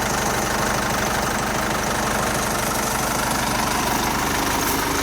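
Japanese L1-345 tractor's diesel engine running steadily at an even, low speed. It sounds healthy, and the owner says it has run eight years with no repairs.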